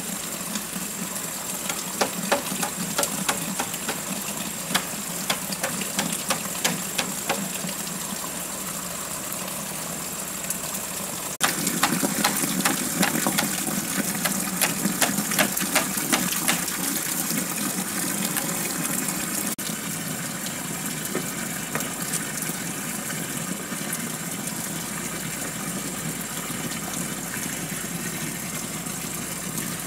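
Water running from a bamboo pipe and splashing steadily into a bamboo tub. Sharp irregular knocks or taps come in two runs, from about two seconds in and again from about twelve to seventeen seconds in.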